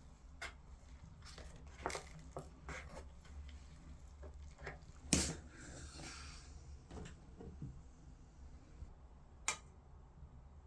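Scattered light clicks and knocks of small objects being handled, with a louder knock about five seconds in followed by a short rustle, and another sharp click near the end, over a low steady hum.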